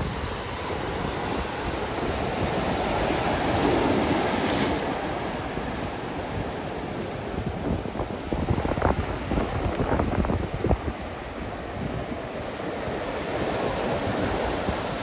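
Ocean surf: waves breaking and washing up the shore in a continuous wash, swelling to a louder break about four seconds in.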